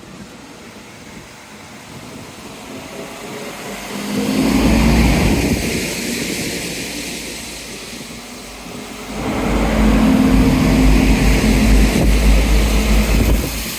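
Diesel train engine droning with a deep rumble, swelling about four seconds in, easing, then rising louder again from about nine seconds before dropping off sharply near the end.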